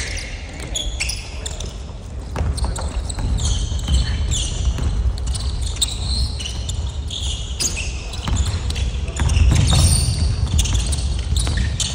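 A basketball game on a hardwood gym floor: sneakers squeaking in many short high chirps and the ball bouncing, over a low rumble that swells near the end.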